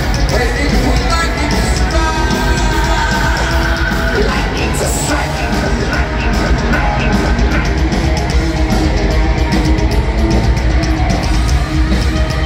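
Heavy metal band playing live in an arena: a sung and shouted lead vocal over distorted electric guitars, bass and drums, loud and continuous.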